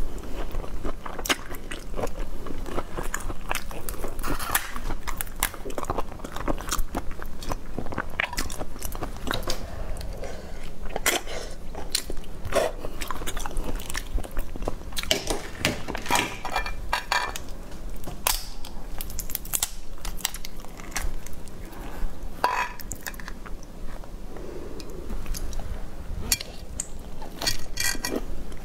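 Close-miked eating of raw langoustine: wet chewing and lip smacks, with sharp crackles of the shell being pulled off the tails.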